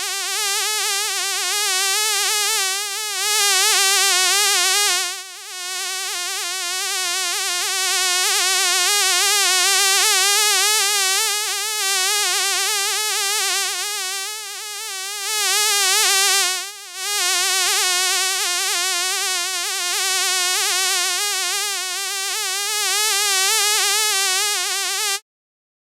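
A fly buzzing continuously, its pitch wobbling quickly and its loudness swelling and dipping. It stops abruptly near the end.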